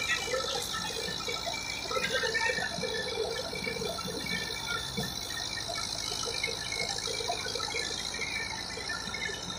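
Wheat thresher belt-driven by a Massey Ferguson 265 tractor, running steadily: a continuous rattling, rushing din of the threshing machine over the tractor's engine.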